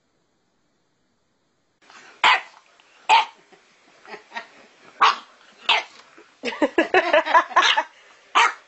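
Puppy barking in short, sharp yaps at its own reflection in a mirror. It starts about two seconds in with single yaps a second or so apart, then a quick run of yaps about two-thirds of the way through.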